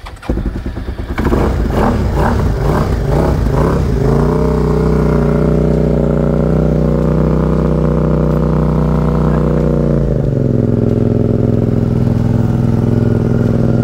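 Tuned Suzuki SV650 V-twin motorcycle engine fires up and runs choppy and uneven for the first few seconds, then holds a steady raised engine speed before dropping to a lower idle about ten seconds in.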